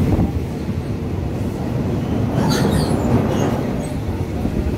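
Diesel railcar running along the track, a steady low rumble heard from inside the carriage with its windows open. About halfway through comes a brief patch of high-pitched squealing.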